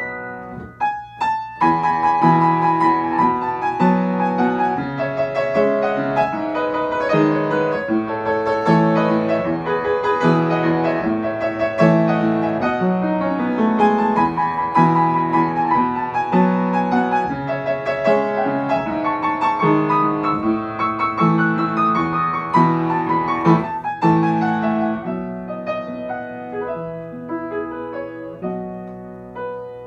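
Upright piano played solo: an instrumental piece with a melody over repeating low notes. The playing breaks off briefly about a second in, then runs on and grows softer over the last few seconds.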